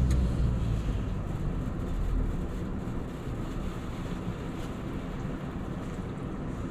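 A low, steady rumble with no distinct knocks or rhythm.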